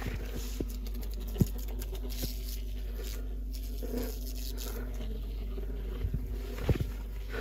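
Scattered light scraping, crackling and tapping, like material being picked at or handled, over a steady low hum. There is one sharper knock about a second and a half in, and a few more knocks near the end.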